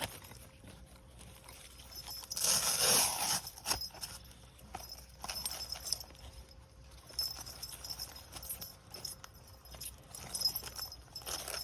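Tree-climbing spurs being handled: irregular metal clinks and light knocks from the spurs and their buckles, with strap rustling and a louder rustle about two and a half seconds in.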